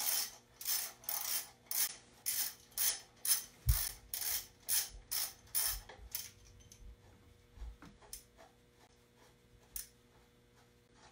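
Hand ratchet wrench clicking in quick, even strokes, about three a second, while the bolts of a power steering pump pulley are worked loose. A dull thud comes about four seconds in. The ratcheting stops about six seconds in, leaving a few faint clicks.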